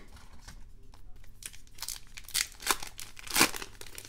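A foil trading-card pack being torn open, its wrapper crinkling and ripping in a run of sharp crackles that grow louder after about a second and a half and peak near the end.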